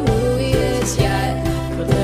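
Background music: a song with a singing voice over a steady beat, drum hits about twice a second.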